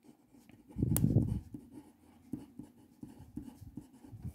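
Pen writing on workbook paper: short scratchy strokes as a line of figures and letters is written out, with a louder stretch about a second in.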